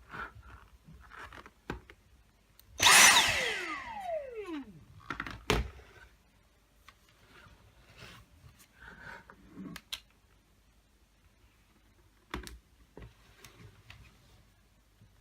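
Dyson V6 Fluffy cordless vacuum's motor briefly switched on, then whining down in pitch over about two seconds as it spins down. A few sharp clicks and knocks follow.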